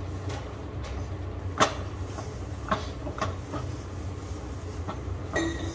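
A spatula scraping and tapping against a nonstick pan as khoya is stirred and pressed over low flame: irregular clicks and knocks, the loudest about a second and a half in, over a steady low hum.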